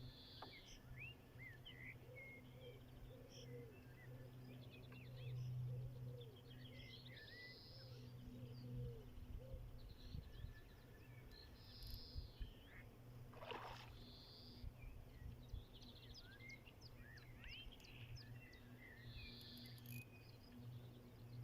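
Faint outdoor ambience of several birds singing and chirping, over a steady low hum, with a brief rustle about halfway through.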